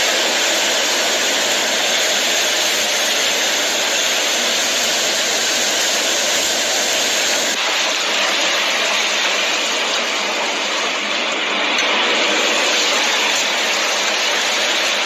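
Heavy storm downpour of rain and hail, a dense steady hiss whose character changes abruptly about halfway through.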